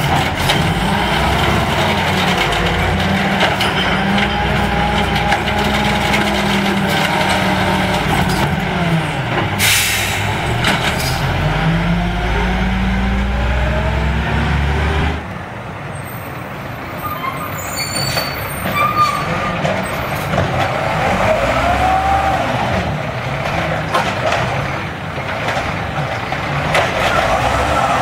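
Automated side-loader garbage truck, LNG-fuelled, its engine revving up and down repeatedly as the hydraulic arm lifts and empties curbside carts, with a brief hiss about ten seconds in. About halfway through the sound cuts to a quieter second side-loader doing the same, its arm tipping a cart into the hopper.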